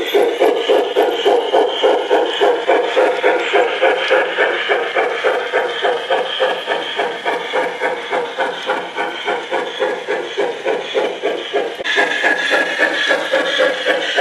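Garden-railway model steam locomotive running with a steady rhythmic chuff, about three beats a second.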